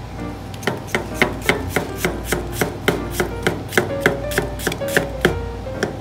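Chef's knife slicing a peeled onion thinly on a wooden cutting board, each stroke ending in a crisp knock on the board. The cuts come evenly, about four a second, starting about half a second in.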